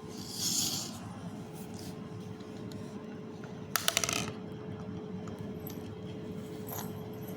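A brief hissy rustle near the start, then a quick run of sharp clicks about four seconds in, like a small hard object being tapped or rattled, over a faint steady hum.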